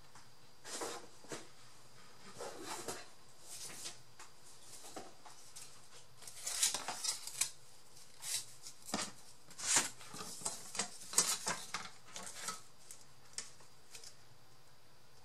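Handling of craft materials and tools at a work table: an irregular run of short scrapes, rustles and taps, busiest in the middle of the stretch.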